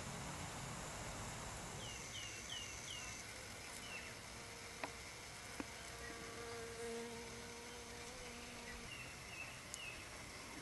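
A bee buzzing in flight: a steady hum that starts about six seconds in and stops about three seconds later. Small birds chirp in the background, four quick falling chirps around two seconds in and a few more near the end, over a faint outdoor hiss.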